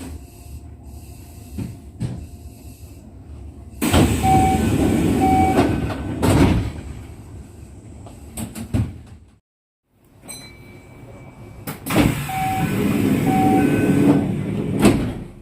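Sliding passenger doors of a Kintetsu 1233-series train working at a station stop. There are two loud spells of door movement, about four seconds in and again near the end, each carrying two short beeps.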